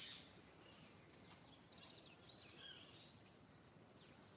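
Faint birdsong: several birds giving short chirps and quick falling whistled notes, one after another, over a soft steady background hiss.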